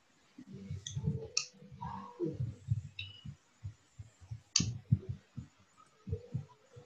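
Irregular clicks and soft low thumps from movement close to a video-call microphone, with sharp clicks about a second and a half in and again near five seconds.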